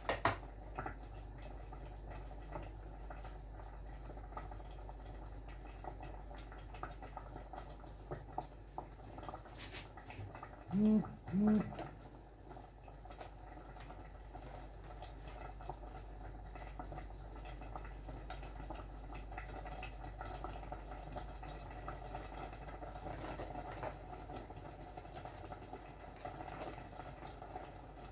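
Pot of cassava leaf sauce simmering on an electric hob: a steady low bubbling with small ticks and pops throughout. About eleven seconds in, two short rising tones come one right after the other.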